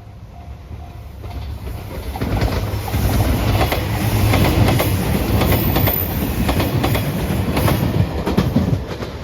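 A railway level-crossing warning bell dings steadily at first. Then a passenger train comes up and runs past close by, its wheels clacking over the rail joints. The train noise drops away sharply near the end.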